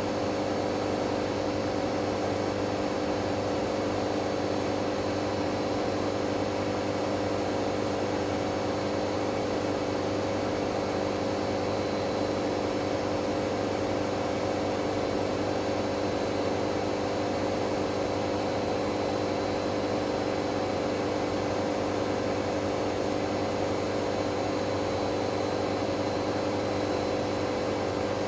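Hoover Dynamic Next washing machine on a spin-only cycle, its drum spinning at a steady high speed with an even motor whine and hum that does not change.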